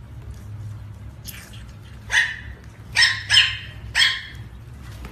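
A dog barking: four sharp, high-pitched barks in quick succession, the middle two close together, with a fainter one just before them.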